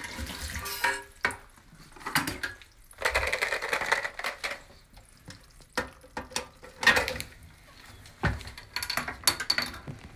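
Irregular knocks, clicks and scraping of a toilet fill valve being handled and worked loose inside an empty porcelain tank.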